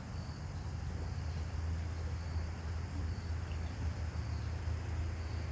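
A steady low rumble, with faint, short, high insect chirps repeating about once a second.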